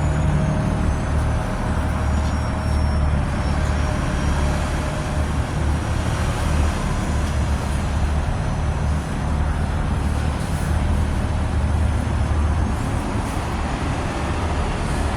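Steady low rumble of a motor vehicle running, a car engine's hum.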